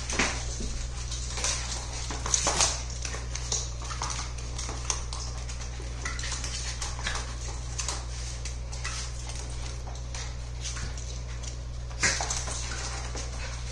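Two small curly-coated dogs play-wrestling on a hard floor: scattered scuffling and clicking of paws and claws, with a few louder bursts about two and a half seconds in and again near the end. A steady low hum runs underneath.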